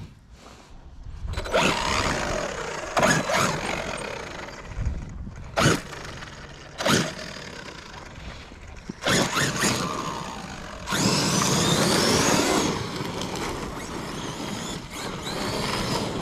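Traxxas Sledge electric RC truck, fitted with a 15-tooth pinion, being driven: its brushless motor whines up and down in pitch with the throttle, with several sharp knocks and a louder burst about eleven seconds in. The motor makes an odd noise that the owner thinks may be a shot motor bearing; the gear mesh has been checked and is fine.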